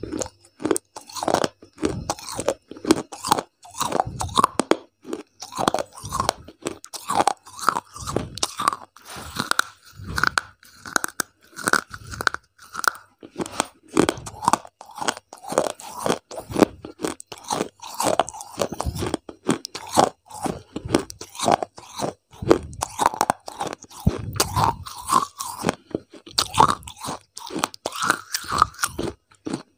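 Crunchy food being chewed right up against a lapel microphone: a quick run of crisp crunches, a few a second, throughout.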